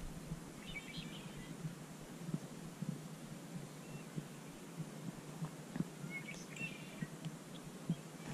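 Faint bird chirps in two short bursts, about a second in and again around six to seven seconds, over a quiet background. Scattered soft ticks come from handling the rod and baitcasting reel.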